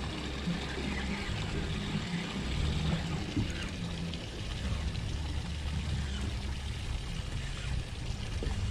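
Wind on the microphone and small waves lapping at a boat's hull, a steady, uneven rushing with no distinct events.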